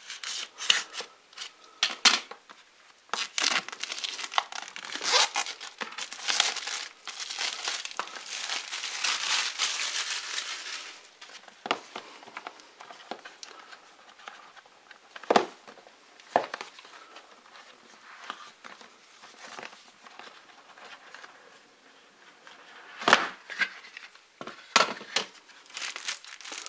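Plastic shrink wrap slit with a utility knife and peeled off a cardboard box, crinkling and tearing for about the first ten seconds. After that come quieter rustling and a few sharp knocks as the box is handled and opened.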